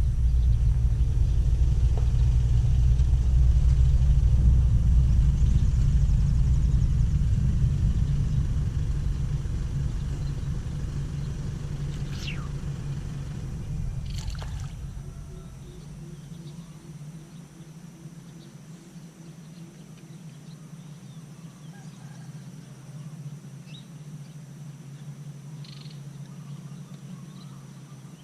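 A low rumble, loud for the first half and then fading away, gives way to quiet outdoor ambience with a few short bird calls and a short run of evenly spaced croaking pulses.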